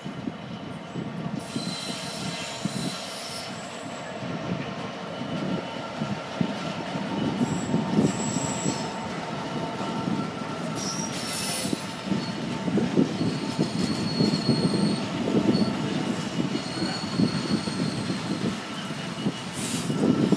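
A freight train of container flat wagons rolling past behind a Class 66 diesel locomotive, its steel wheels rumbling and clattering on the rails, with thin high-pitched wheel squeals coming and going. The sound grows gradually louder as the wagons pass.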